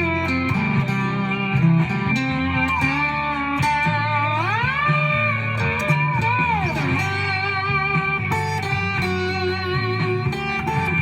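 Electric guitar played through a Sho Sound Boss Tone distortion box: sustained, distorted notes with long sustain, and a note bent up about four seconds in, held, then let back down.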